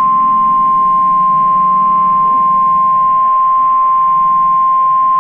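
NOAA Weather Radio's 1050 Hz warning alarm tone: one loud, steady, unbroken beep from a weather radio's speaker, the signal that a warning, here a tornado warning, is about to be broadcast.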